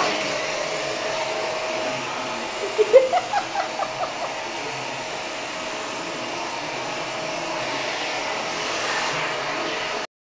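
Vacuum cleaner running steadily with a held whine. About three seconds in, an animal gives a quick run of about seven short, high calls. The sound cuts off abruptly near the end.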